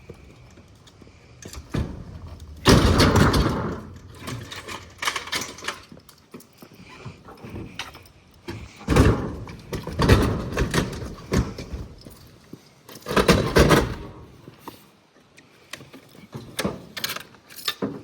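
Heavy junk being moved: three loud scraping, rattling bouts of about a second each, the first about three seconds in, with scattered knocks and clunks between them.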